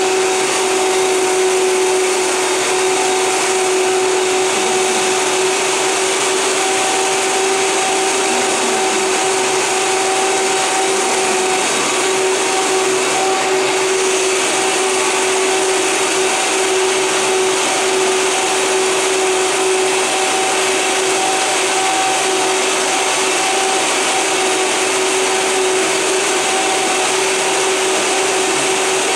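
High-powered countertop blender running at a steady speed, its motor holding one steady whine with a loud hiss as it blends a thick sauce.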